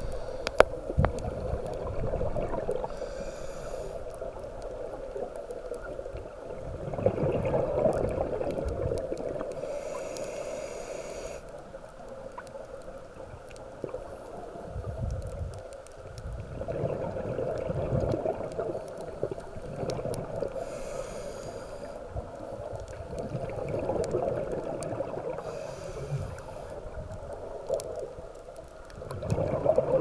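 Scuba diver breathing through a regulator, recorded underwater: bubbly gurgling exhalations and hissing inhalations that swell and fade in slow cycles every several seconds.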